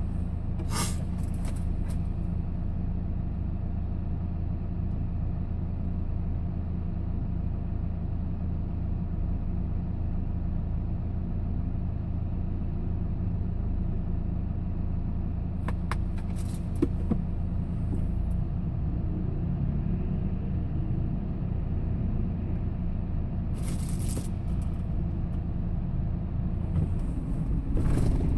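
Steady low engine and road noise from inside a moving vehicle's cabin, with a few brief faint clicks and the rumble growing louder near the end.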